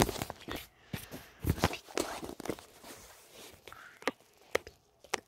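Handling noise from a handheld camera held close: an irregular string of sharp knocks, bumps and rubbing clicks, loudest at the start, with a few soft voice sounds mixed in.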